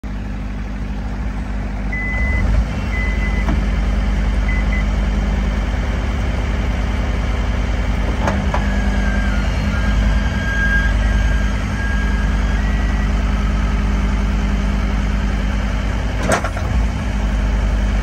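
John Deere skid steer loader's diesel engine running steadily, growing louder about two and a half seconds in. A few short high beeps come early, a thin high whine sounds around the middle, and a sharp knock comes near the end.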